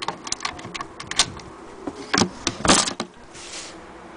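Clicks, knocks and rattles from handling the wooden case of a hand-crank Singer sewing machine at its latch, loudest in a cluster about two to three seconds in, over a faint steady hum.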